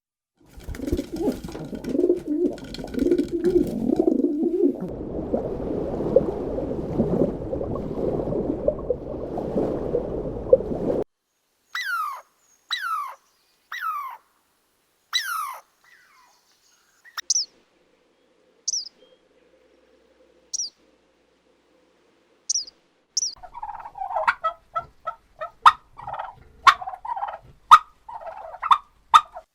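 A series of different animal and bird calls, one clip after another. First comes a dense stretch of calling until about a third of the way in. Then four calls that each fall in pitch, then a few short high chirps, and near the end a quick run of repeated calls.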